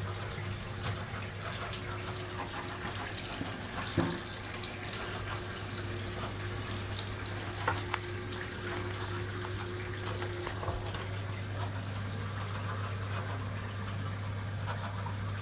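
Hot water running steadily from a tap, over a low steady hum, with a short knock about four seconds in and another about eight seconds in.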